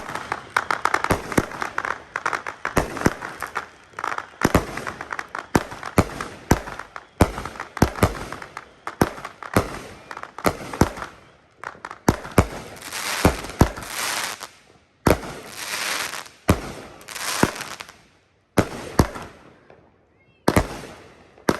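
An 18-shot 200-gram consumer fireworks cake firing its shots in quick succession, a string of sharp launch and burst bangs. Near the end come several louder breaks, each trailing a long hiss that fades out.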